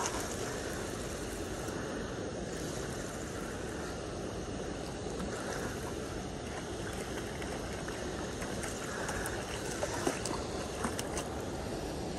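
Steady wind noise rumbling on a chest-mounted phone's microphone, over a flowing river, with a few light clicks and knocks about ten seconds in.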